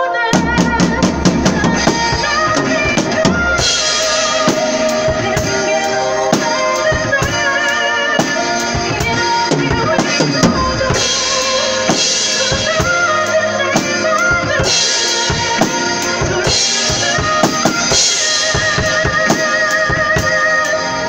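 Acoustic drum kit played along with a recorded pop ballad and its singer: a quick run of hits as the drums come in, then a steady beat on bass drum and snare with cymbal crashes several times over the track.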